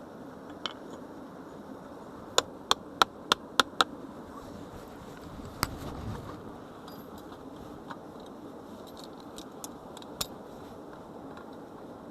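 Sharp clicks of hard objects striking: a quick run of six in under a second and a half, then scattered single clicks, over a steady low hiss.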